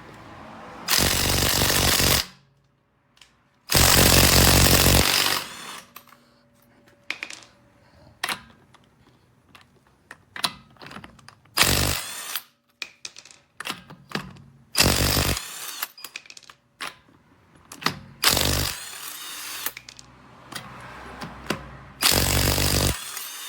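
Cordless brushless 20-volt half-inch impact wrench hammering lug nuts torqued to 104 foot-pounds off a car wheel, in six bursts. The first two bursts last over a second each and the later ones are short. Quieter clicks and knocks come between the bursts.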